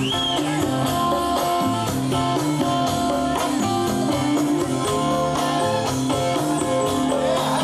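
Live rock band playing, electric guitar to the fore over bass and a steady drum beat.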